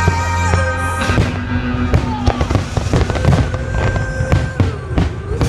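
Fireworks bursting in a quick string of sharp bangs and crackles over loud orchestral-style music with long held notes, the musical accompaniment of the display.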